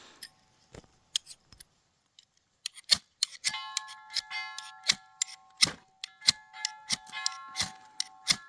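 A steel knife struck again and again against a flint to throw sparks: a run of sharp scraping strikes, sparse at first and then about two to three a second, with a faint metallic ringing under them.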